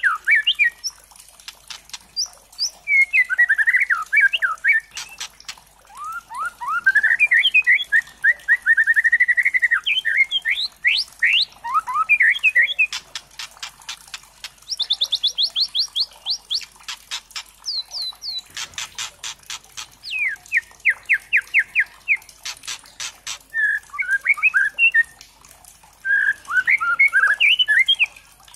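Young white-rumped shama (murai batu trotol) singing a varied song of fast trills and quick whistled notes. Through the middle come runs of rapid dry rattling clicks.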